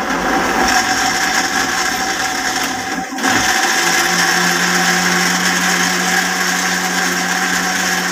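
Electric countertop blender running at full speed, pulping phalsa berries with sugar and water. There is a brief dip about three seconds in, after which the motor settles into a steady hum as the berries break down into a smooth purée.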